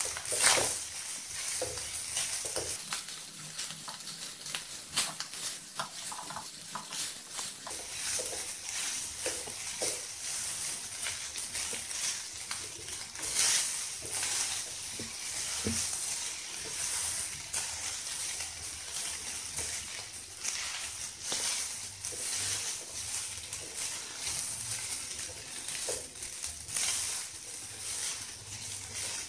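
Vegetable fried rice sizzling in a kadai over a gas flame while a wooden spatula stirs and tosses it, with frequent short scrapes and knocks of the spatula against the pan.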